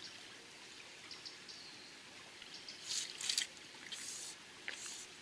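River water running over stones, a steady trickling rush, with a few short hissing swishes about three seconds in and again near the end.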